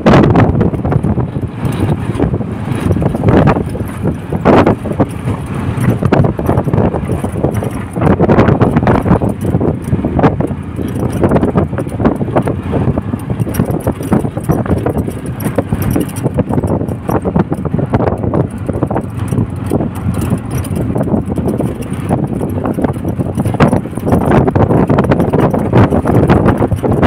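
Ride inside an open-sided three-wheeled auto-rickshaw: its small engine and road noise run steadily, with irregular knocks and rattles and wind buffeting the microphone.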